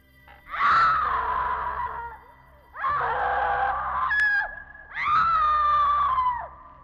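A person screaming three times in long, high-pitched screams, each sagging slightly in pitch, with short breaks between them.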